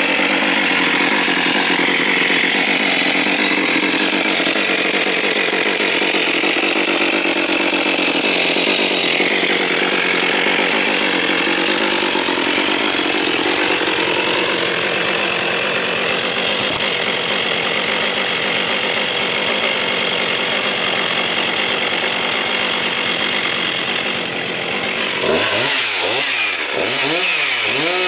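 Husqvarna 261 two-stroke chainsaw running at full throttle, cutting through a log. Near the end it briefly drops, then revs up and down several times.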